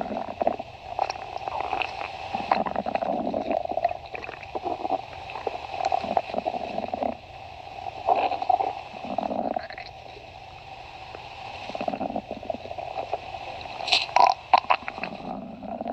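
Human stomach growling: a string of irregular gurgles and rumbles that come and go every second or two, with a louder, crackly gurgle near the end.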